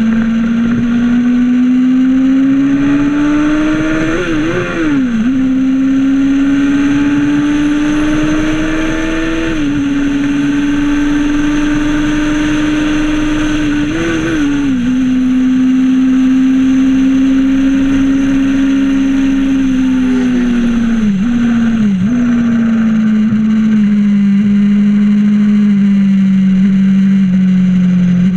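Formula 2 racing car's engine heard onboard at racing speed. The note climbs as the car accelerates and drops back at gear changes about five, ten and fifteen seconds in, then falls with two quick dips a little past the two-thirds mark as the car slows and shifts down.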